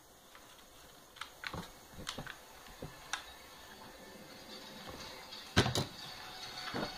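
Handling noise from a plastic Boomco Halo M6 toy blaster: a series of light plastic clicks and knocks, then a louder double knock about five and a half seconds in as the blaster is set down on a surface.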